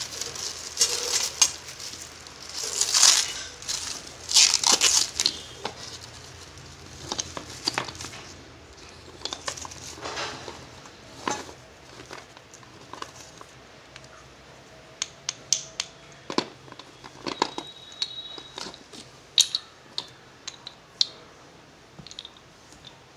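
A clear plastic packet crinkling as it is pulled open, then Sanchi slate pencils clicking against one another and against a steel plate as they are sorted and picked up, in many short sharp clicks.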